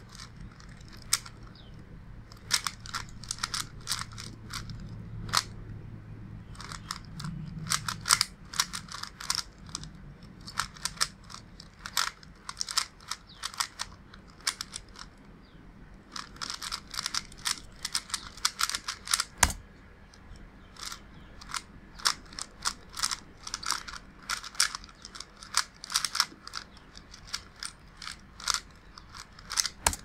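Quick flurries of clicking and clacking from the plastic layers of a 30th Anniversary Rubik's Cube being turned in a speedsolve; the cube is lightly lubed with silicone yet turns stiffly. About nineteen seconds in there is one sharp knock, which fits the solve being stopped on the timer, and then the turning goes on.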